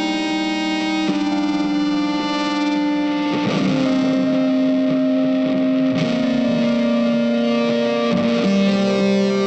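Background music: sustained guitar notes with an effects-laden, lightly distorted tone, changing chord every second or two.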